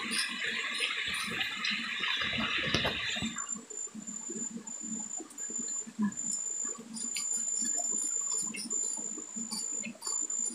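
Shallow stream water rushing and splashing over rocks, with a hiss that cuts off suddenly about three and a half seconds in. After that comes softer gurgling of the current, with a faint high whine that pulses on and off.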